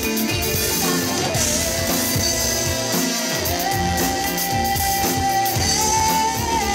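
A live electronic pop band playing: a woman singing over electric guitar, keyboards and drum kit, with a long held melody note that steps up in pitch twice.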